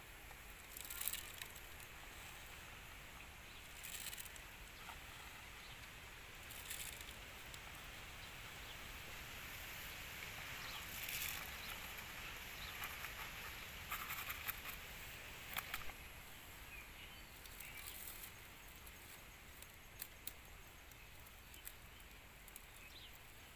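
Faint outdoor background with soft, irregular rustling and crackling every few seconds as a woven bamboo eel trap is handled and baited, and a lotus leaf is pushed into its mouth.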